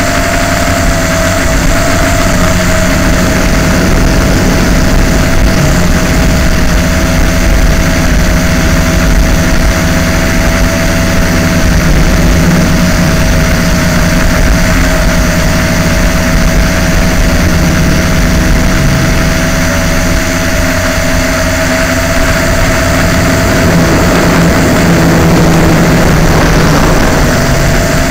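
LaTrax Alias quadcopter's electric motors and propellers running in flight, heard close up through a camera mounted on the craft: a steady whine over a rough rumble and hiss, with the whine dipping briefly near the end.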